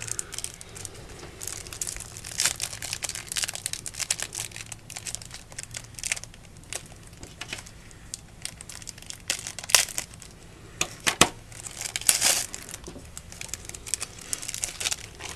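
Crinkly packaging of trading-card packs being torn open and handled, with irregular sharp rustles and crackles that are loudest toward the end.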